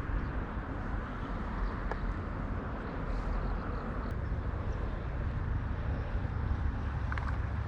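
Steady low rumble of outdoor background noise, with a couple of faint ticks.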